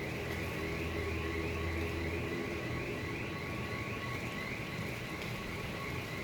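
Strong wind rushing, with a low rumble that eases off about two seconds in. A faint high chirp, rising in pitch, repeats about twice a second behind it.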